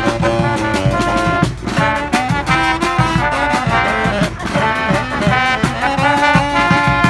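Street brass band playing a tune, trombones and trumpets in harmony over a steady percussion beat.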